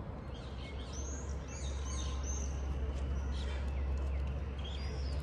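Small birds chirping, short high calls in a flurry about a second in and again near the end, over a steady low rumble.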